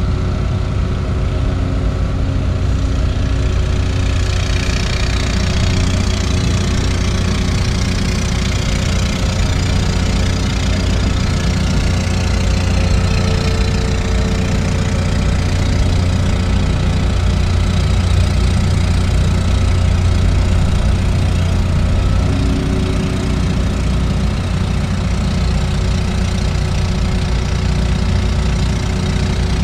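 Excavator's diesel engine running steadily while it digs a ditch. A higher hiss joins about four seconds in.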